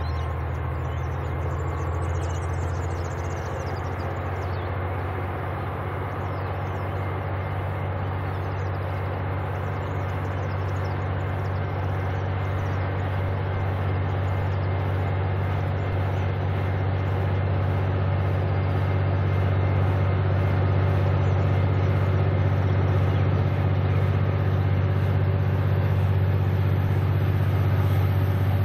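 V/Line A class diesel-electric locomotive running with a deep, steady engine drone that grows gradually louder.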